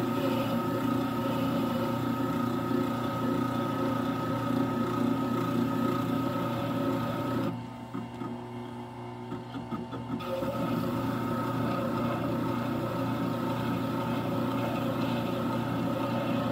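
Wet sharpening grinder's motor running steadily while a butter knife's edge is honed against its honing wheel, steel rubbing on the wheel. The rubbing drops away for about two and a half seconds in the middle as the blade is lifted off, then starts again.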